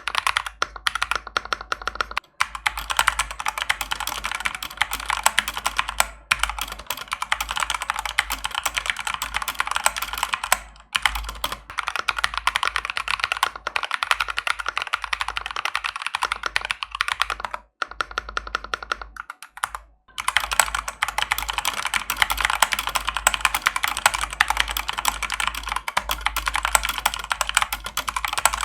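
Redragon Fizz K617 mechanical keyboard with lubricated Akko switches being typed on rapidly: a dense stream of keystrokes, broken by short pauses a few times, the longest about 18 seconds in.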